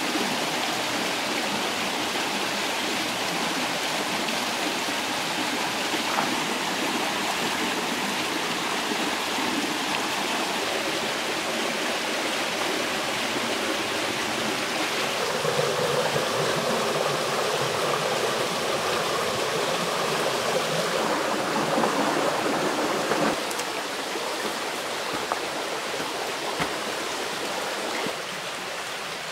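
A rocky mountain stream runs steadily, a continuous rush of water over stones. It drops a little in level about two-thirds in, and again near the end.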